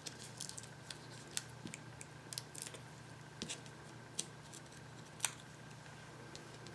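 Faint, scattered small ticks and crinkles of paper: the backing papers being peeled off foam adhesive dots stuck to a cardstock panel, with one sharper tick about five seconds in.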